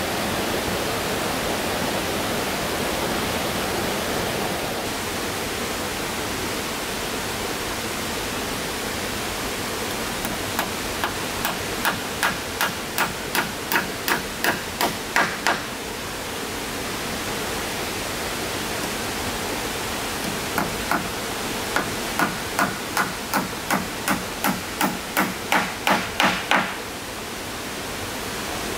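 Hammer driving nails into wooden planks: two runs of about a dozen steady blows each, some two or three a second, over a constant rushing noise.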